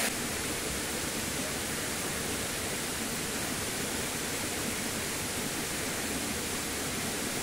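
Steady rush of stream water pouring over rocks.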